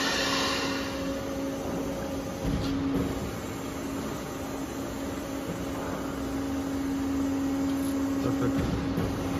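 Plate rolling machine running with a steady hum while its rolls pre-bend a 20 mm steel plate. There is a light knock about two and a half seconds in.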